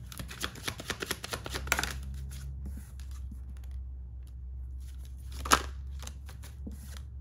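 Tarot deck being shuffled by hand: a dense run of card flicks for about two seconds, then scattered soft clicks and one sharp snap of cards a little past halfway.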